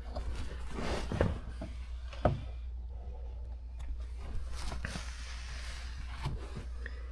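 Rustling and handling noise with two sharp knocks, about a second apart, over a steady low hum.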